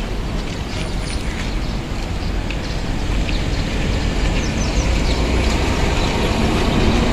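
Strong sandstorm wind rushing over and buffeting the microphone: a steady, deep, noisy rush that grows slightly louder.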